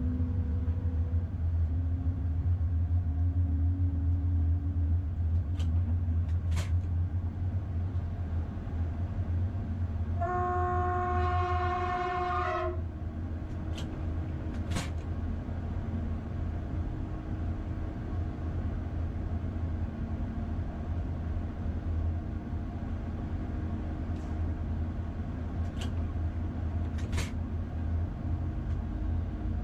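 Diesel locomotive heard from its cab: a steady low engine rumble throughout, with one long horn blast of over two seconds about ten seconds in, and a few brief sharp clicks.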